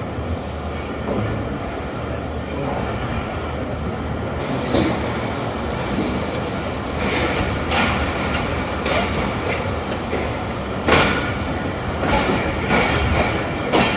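Tezgam Express passenger coach rolling on the track: a steady rumble, with wheels clacking over rail joints and points from about four seconds in, the clacks coming more often toward the end.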